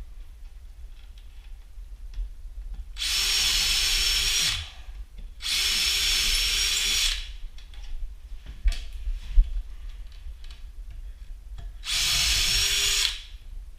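Cordless drill with a 1/8-inch bit boring pilot holes through a cabinet door through a jig template: three short runs of a steady whine, each about a second and a half long, with a couple of sharp knocks in the pause between.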